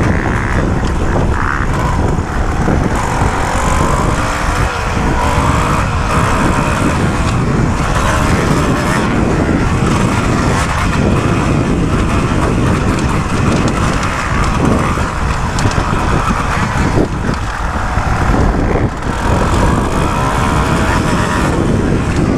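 Kawasaki KX250 motocross bike's engine being ridden hard around a dirt track, its pitch rising and falling with throttle and gear changes, under heavy wind noise on the bike-mounted camera's microphone.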